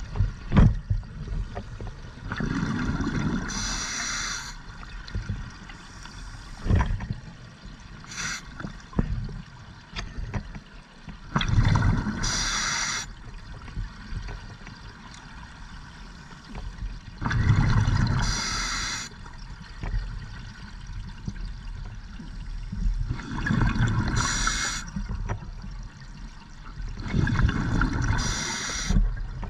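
Scuba diver breathing underwater through an open-circuit regulator: about five breaths, each a bubbling exhalation with a hiss, every five to six seconds.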